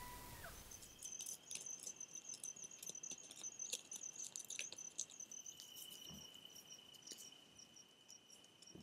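Night insects calling: a high, steady pulsing trill, joined about halfway through by a lower continuous buzz, with scattered faint clicks. An animal's held howl fades out in the first half second.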